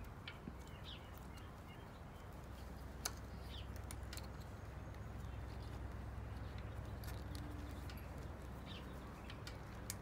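Faint outdoor background with a low steady hum and a few bird chirps, over small clicks and rustles of wires and plastic connectors being handled in the bike's wiring harness; the sharpest click comes about three seconds in.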